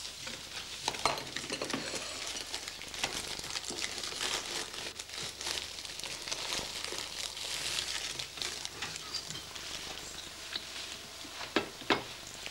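Breakfast-table noises: a cereal packet rustling and crinkling, with small clinks of cups and cutlery throughout and a couple of sharper knocks near the end.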